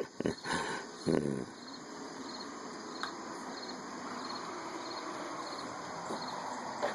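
Crickets chirping steadily, about two chirps a second, over a steady hiss. In the first second and a half there are a few knocks and one short pitched cry.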